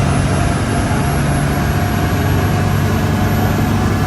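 Tour boat's engine running steadily under way, a low even drone with a rushing hiss of wind and water over it.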